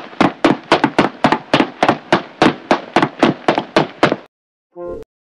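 Evenly spaced heavy thuds, about three or four a second, that stop about four seconds in. A short pitched blip follows near the end.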